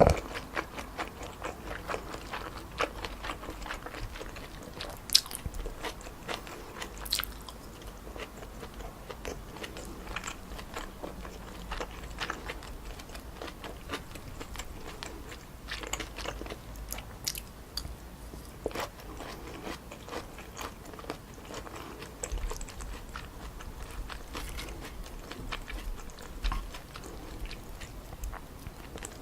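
Close-miked chewing and biting of stir-fried chewy wide glass noodles with pork neck and vegetables: wet mouth clicks and soft crunches, irregular throughout.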